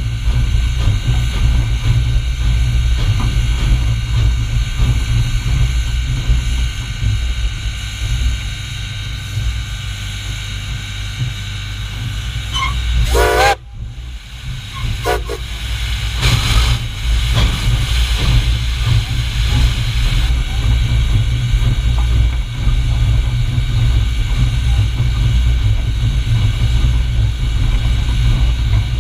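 Steam locomotive 425 running with its train, a heavy steady rumble. A short wavering pitched tone, like a whistle, sounds about halfway through, just before a sudden brief drop in the sound.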